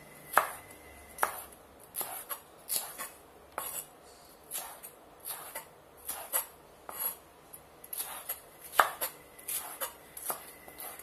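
Chef's knife slicing bell pepper into strips on a wooden cutting board: sharp, irregular knocks of the blade meeting the board, about one or two a second.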